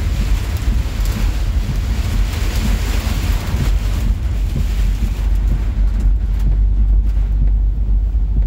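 Heavy rain and wind battering a semi truck's cab and windshield at highway speed, over the steady low rumble of the truck on the road. The hiss of the rain eases off about five seconds in.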